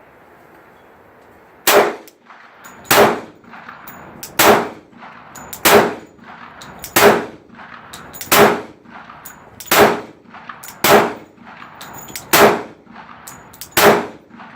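Glock 29 pistol firing 10mm rounds, ten single shots at a steady pace of about one every second and a half. Every round goes off with no misfire, a sign that the light primer strikes it was sent back to Glock for are not recurring.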